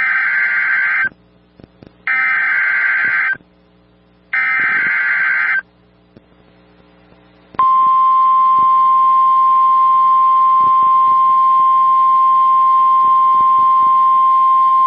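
Emergency Alert System tones on NOAA Weather Radio announcing a tornado warning: three roughly one-second bursts of shrill warbling data noise (the SAME header), then, after a pause, a single loud steady 1050 Hz warning alarm tone that starts about halfway through.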